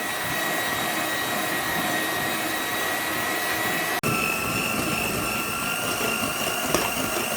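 Electric hand mixer running steadily, whipping a cream for a lemon tart. It makes a whine that jumps to a higher pitch about four seconds in.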